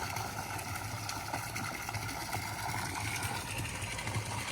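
Electric water pump running steadily to fill a swimming pool: a constant low hum under a hiss of moving water.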